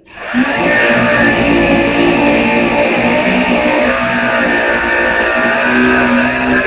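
Background music led by guitar, starting suddenly and running loud and steady.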